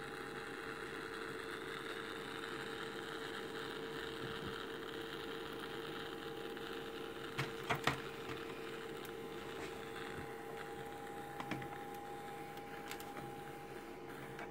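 Ultrasonic piezo humidifier running: a steady hum with a hiss above it that comes in at the start. A few short clicks sound about halfway through and again later.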